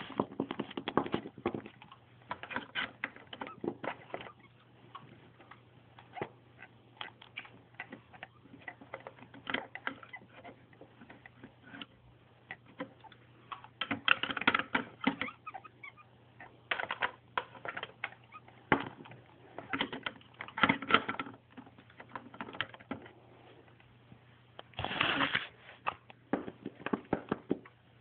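Small plastic toy figures being handled: irregular clicks and taps, some coming in dense clusters, over a faint steady low hum.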